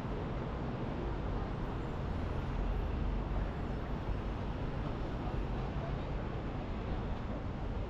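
Steady low rumble of a car driving: engine and tyre noise, with no distinct events.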